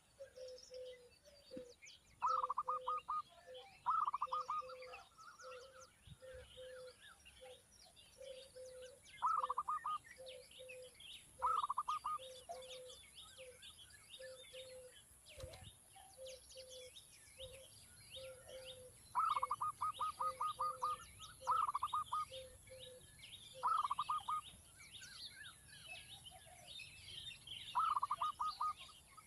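Birds calling: about eight loud bursts of rapid, stuttering calls over a low note repeated roughly twice a second, with many fainter high chirps behind.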